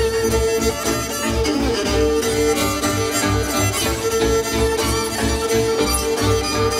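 Hungarian folk string band music: a solo violin leads with long held notes over an accompaniment of second violin, cimbalom and double bass. The bass gives a steady pulsing beat underneath.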